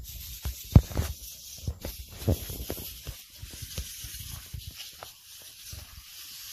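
Backpack sprayer wand hissing as it sprays the plants, under irregular low thumps and knocks, the loudest about a second in.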